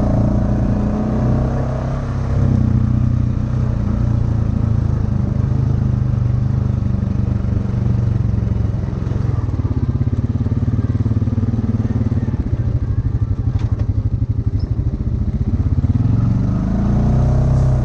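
ATV engine running under way on a trail ride, the throttle varying. Its pitch climbs as it revs up near the end.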